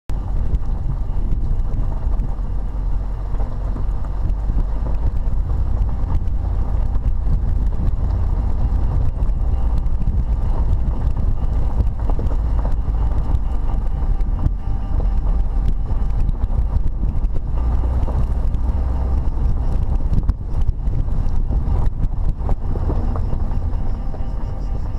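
Wind buffeting the microphone of a camera on the back of a BMW 320 convertible driving with the top down, over a steady low rumble of engine and road noise.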